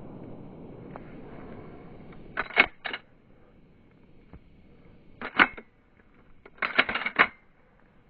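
Three short bursts of small metallic clicking and clinking, one a few seconds apart, the last the longest.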